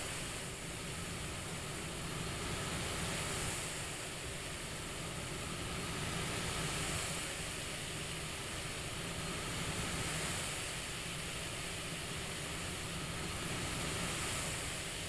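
CPAP-style breathing noise: a steady airflow hiss over a low rumble, the hiss swelling and easing with each breath, four times, about every three and a half seconds.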